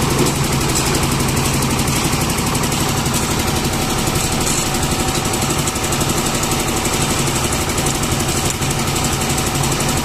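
Engine of a concrete mixer machine running steadily at a building site, with a fast, even beat.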